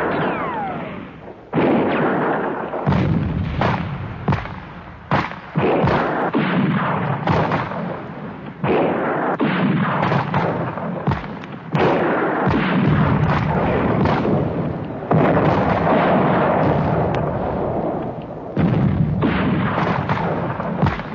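Battle sound effects: a dozen or so explosions, one after another every second or two, each starting suddenly and rumbling away with hardly a pause between them.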